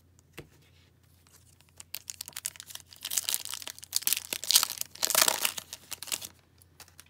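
Hockey card pack wrapper torn open by hand, with crinkling and tearing that starts about two seconds in and lasts about four seconds, loudest in a few sharp rips near the middle.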